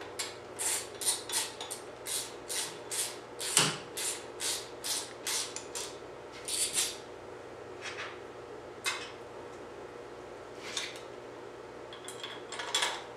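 Light metallic clicks and clinks of small bolts, chrome breather parts and a screwdriver being handled and set in by hand. A quick run of clicks comes first for about seven seconds, then a few scattered ones.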